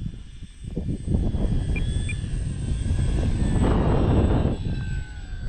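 Electric motor and propeller of an Arrows Hobby Bigfoot RC bush plane whining in flight, its pitch dipping slightly near the end, under heavy wind buffeting the microphone.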